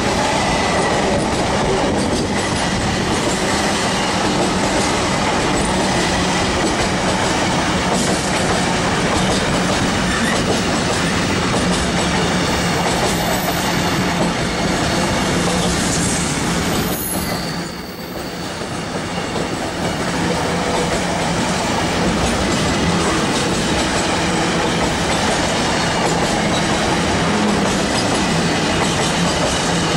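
Loaded container freight wagons running past at speed, a loud, steady rush of steel wheels on rail. The noise dips briefly a little past the middle, then returns.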